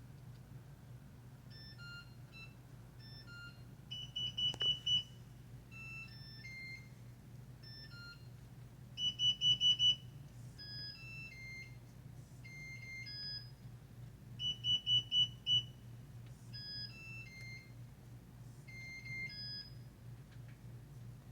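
Smart lock sounding electronic beeps: scattered short tones that jump between pitches, with three louder bursts of five or six quick beeps on one pitch about 4, 9 and 14 seconds in. A steady low hum runs underneath.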